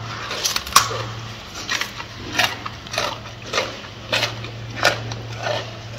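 A gorilla chewing crisp lettuce leaves with a steady run of wet crunches, about one and a half a second.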